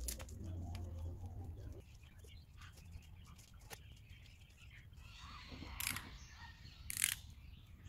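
A dove cooing in the first couple of seconds, then two short scratchy noises about a second apart near the end.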